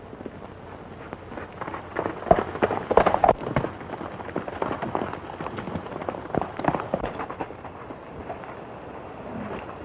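Hoofbeats of a galloping horse: an irregular clatter, loudest a few seconds in and thinning out near the end.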